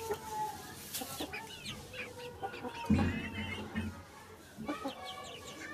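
A flock of domestic hens clucking with many short calls while pecking at scattered feed, with a low thump about three seconds in.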